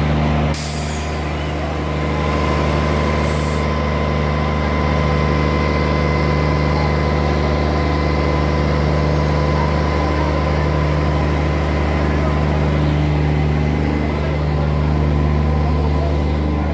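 Heavy vehicle engine idling steadily with a deep, even hum, and two short hisses like air-brake releases about half a second and three seconds in.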